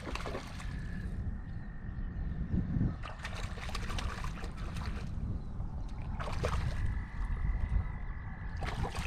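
Wind rumbling on the microphone while a hooked bullhead splashes at the surface as it is reeled toward shore, in several short crackling bursts.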